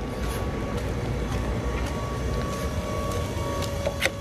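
Steady low outdoor background rumble with a faint steady hum, and a short click about four seconds in.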